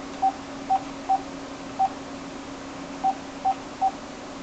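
Mobile phone keypad beeps as a number is dialled: seven short beeps of the same pitch, irregularly spaced, with a pause of over a second in the middle.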